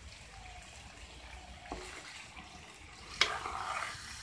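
Steel ladle stirring and scraping chicken curry in a thick-bottomed metal pan, with a sharp knock of the ladle against the pan about three seconds in, followed by scraping.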